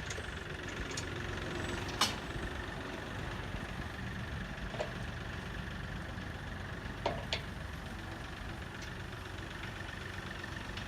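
An engine idling steadily, with a few sharp knocks: one about two seconds in and a quick pair near the seventh second.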